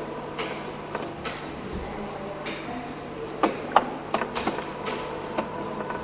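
A motorised sculpture of hinged wooden panels working, giving off irregular clicks and knocks from its moving arms and joints over a steady low hum. The sharpest knocks come about three and a half seconds in.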